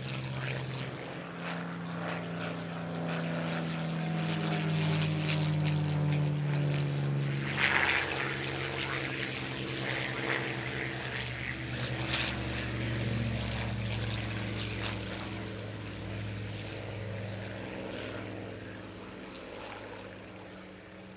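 WWII piston-engined fighters (Spitfire, Hurricane and Bf 109) flying past in formation, their V12 engines droning with a pitch that slides down as they pass, then fading away near the end.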